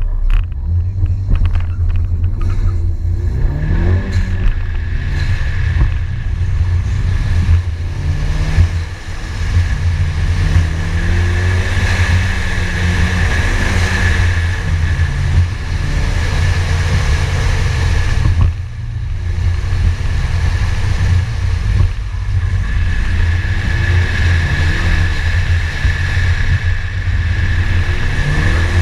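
Ford Focus ST's turbocharged four-cylinder engine driven hard on an autocross run, its pitch climbing and dropping again and again under a heavy steady rumble, with a steady high whine running through most of it.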